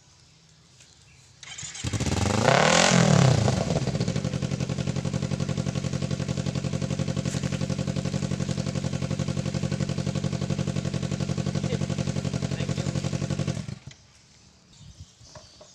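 Kawasaki Ninja sport bike engine, with a length of bamboo for its exhaust pipe, starting about a second and a half in and revving up once before falling back. It then idles with a steady pulsing beat and cuts off suddenly near the end.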